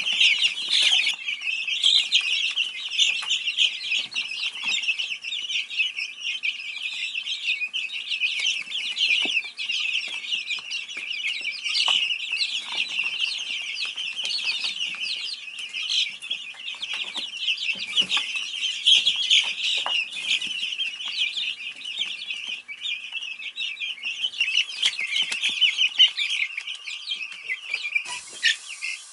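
A flock of Easter Egger chicks peeping continuously, many high chirps overlapping at once.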